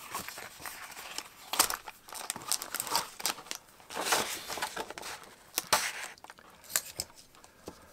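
Tissue paper and a cloth pouch rustling and crinkling as they are handled in a cardboard box, in irregular short bursts.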